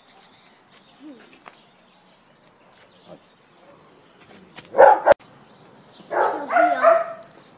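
A dog barking: one short bark about five seconds in, then a quick run of louder barks between about six and seven seconds. A sharp click comes just after the first bark.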